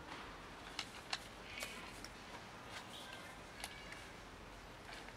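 Cats eating from a plastic food tray: a handful of faint, sharp, scattered clicks and crunches of chewing and of the tray being nudged.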